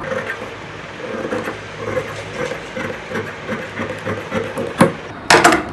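Tailor's shears cutting through cloth along a chalk line in repeated snips, a few a second, then several loud sharp clacks near the end.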